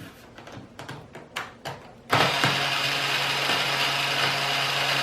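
A few handling clicks, then about two seconds in an electric drill starts driving a screw in and runs steadily at one speed.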